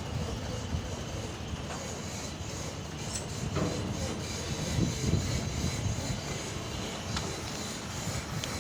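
Tracked excavator running with a steady low rumble as it is loaded, with a few sharp metallic clanks from the machine scattered through it.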